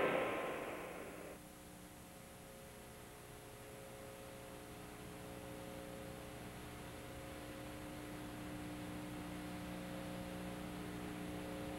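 The tail of the show's bumper music dies away in the first second and a half, leaving a steady electrical hum made of a few low tones on a blank stretch of the recording. The hum grows slowly louder.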